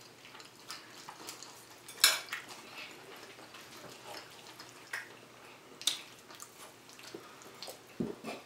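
Forks clinking and scraping against dinner plates: scattered short clicks about a second apart, the loudest about two seconds in, with a few more knocks near the end.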